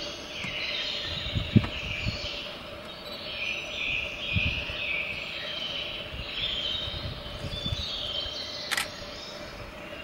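Background chorus of birds and insects chirping steadily, with scattered low thumps and one sharp click near the end.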